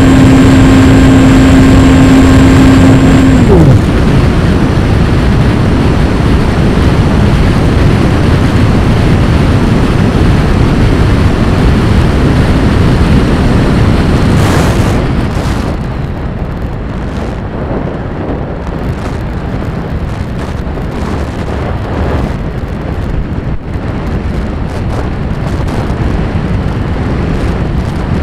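RC plane's motor hum cutting off with a quick falling pitch about three and a half seconds in, then steady rough wind rush over the onboard microphone as the plane glides, easing somewhat about halfway through.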